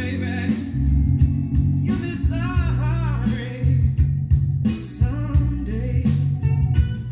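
A song with singing over a heavy bass line, played at a good volume through a pair of Infinity RS-4/B floor-standing speakers and heard in the room.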